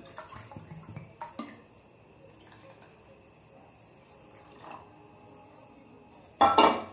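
Cold water poured from a bottle into a small steel bowl and then into whipped cream: a faint splashing trickle, with a short loud knock against a steel bowl near the end.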